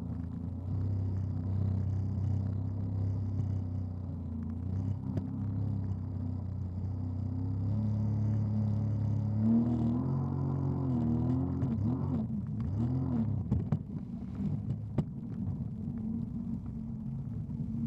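Jet ski engine running at speed through rough chop. About ten seconds in its pitch swings up and down several times as the craft rides over the waves. Short knocks and splashes of water against the hull follow near the end.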